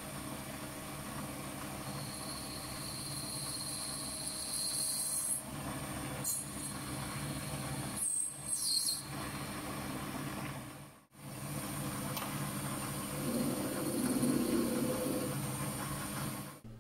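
Mini lathe running, a steady motor hum with a high whine that comes and goes, as the tool takes a light cut on a spinning acetal (Delrin) bushing. The sound drops out briefly about eleven seconds in and stops abruptly at the end.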